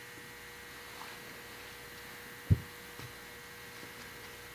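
Faint steady electrical mains hum, with one short dull thump about halfway through.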